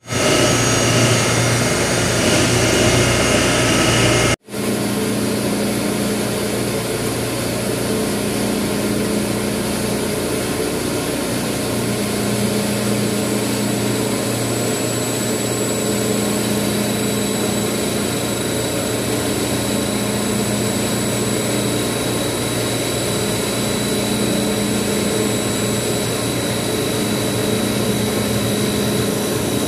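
Steady machinery noise of a centrifugal chiller running, a hum with a thin high whine over it. It drops out briefly about four seconds in, and the low rumble is lighter after that.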